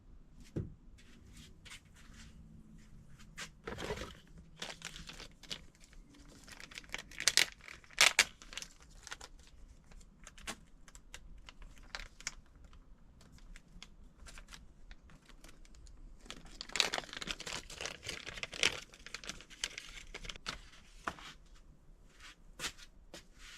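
Handling noise: irregular clicks, scrapes and crinkling, busiest about four to nine seconds in and again around seventeen to nineteen seconds in.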